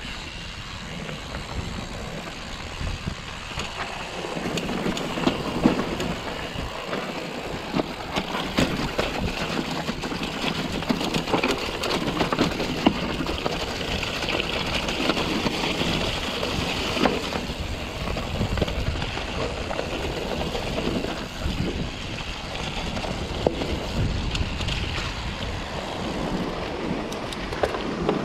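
Mountain bike riding down a rough stony track: tyres crunching over loose rock with a constant rattle and knocking from the bike, and wind noise on the microphone. It grows rougher and louder about four seconds in, as the track turns rocky.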